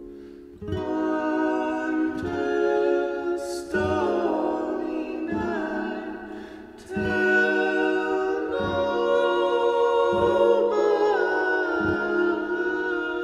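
Soundtrack music: a slow song with sustained singing over a low beat that falls about every one and a half seconds.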